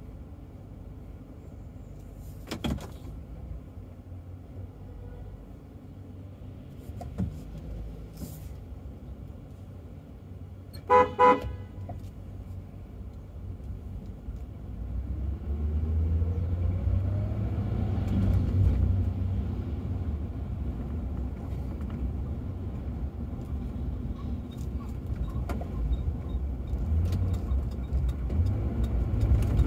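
Car horn sounding two short toots in quick succession, over low traffic noise heard from inside a car. A few seconds later the engine and road noise swell into a steadier low rumble, with a rising tone, as the car pulls away from a stop.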